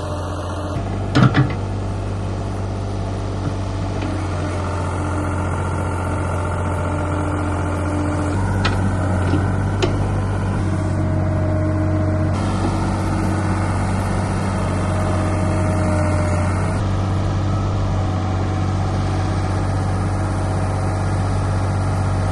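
Old Ford backhoe's engine running steadily, with a few sharp knocks about a second in and again around eight to ten seconds in.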